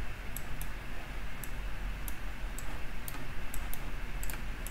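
Irregular clicks of a computer mouse and keyboard, about a dozen, over a low steady background hum.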